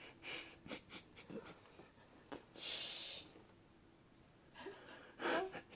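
Soft breathing: a few short breaths early on, one longer hissing breath a little under three seconds in and another near the end.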